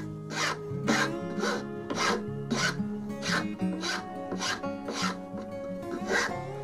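Flat file rasping across the curved end of a wooden block held in a vise, in even strokes about twice a second.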